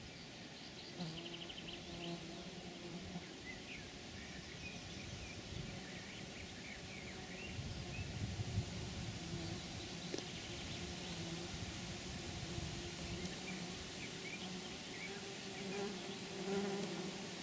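A flying insect buzzing close by, a low hum that fades in and out several times, with short high chirps sounding over it.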